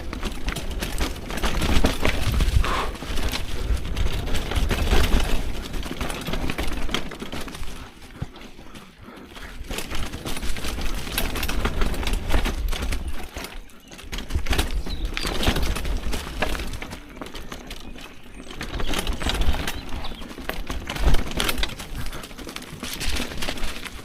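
Mountain bike riding down a dirt forest trail: wind buffeting the microphone, tyres rolling over the dirt and the bike rattling over bumps, rising and falling in waves with the speed.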